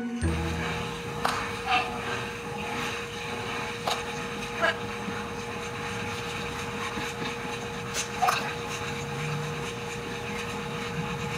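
FluentPet talking buttons clicking as a cat presses them, half a dozen sharp clicks spread through, some followed by a short recorded word such as "help" or "what", over a steady background hum.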